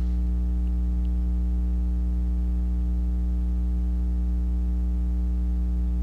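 Steady electrical mains hum: a low, even drone with a ladder of buzzing overtones.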